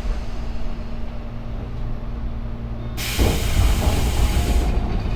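Tobu 9000-series electric train: a steady low rumble with a faint steady hum, then about three seconds in a sudden loud hiss of compressed air lasting about a second and a half.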